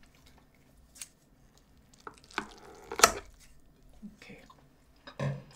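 Close-up eating sounds: about half a dozen short, crisp crunches and clicks of chewing and food handling, the loudest about three seconds in.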